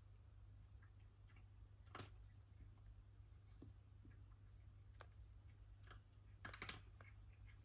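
Near silence: a faint low hum with a few soft clicks, one sharper click about two seconds in and a quick cluster of clicks near the end.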